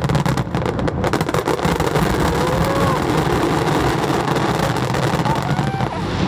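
Fireworks display: a dense crackling of many small bursts through the first second or so, over a continuous loud rumbling din.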